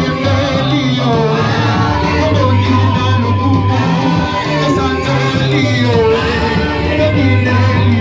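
Amplified church worship music: voices singing over a band with a strong, steady bass line, with some shouting among the voices.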